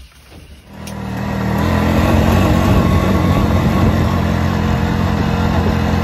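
ATV engine running steadily, coming in about a second in.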